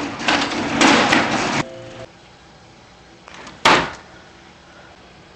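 Air-resistance exercise bike's fan wheel whooshing in surges as it is pedalled hard, cutting off about one and a half seconds in. A single loud thump comes about two seconds later.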